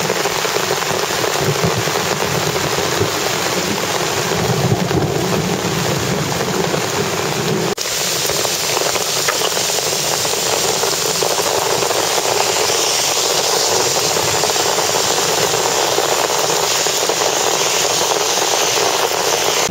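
Torrential rain from a thunderstorm: a loud, steady hiss of a heavy downpour, broken once by a sudden cut about eight seconds in before the same hiss carries on.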